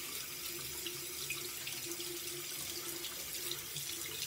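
Bathroom sink tap running steadily while a makeup brush is rinsed under the stream, with small splashes.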